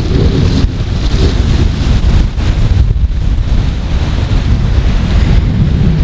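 Wind buffeting the phone's microphone in a loud, unsteady low rumble, over the hiss of ocean surf breaking on the beach.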